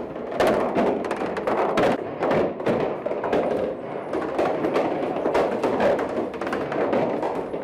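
Music with percussion: frequent sharp knocks over a dense mid-range sound.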